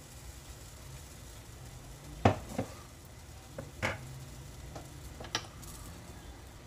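Pancake batter sizzling faintly in a hot buttered stainless steel frying pan, with a few sharp clicks and knocks of kitchen utensils, the loudest a little over two seconds in.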